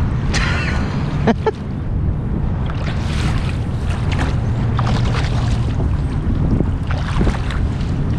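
Water splashing and sloshing as a long-handled landing net is swept through shallow water after a hooked fish, with wind buffeting the microphone. Two sharp knocks come about a second in.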